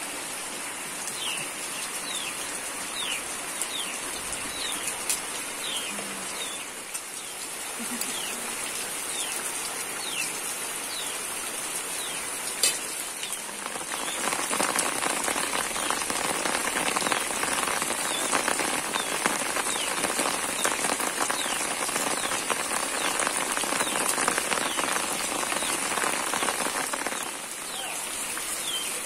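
Rain falling steadily. It gets heavier about halfway through and eases again near the end. A bird calls over it with short, falling chirps repeated now and then.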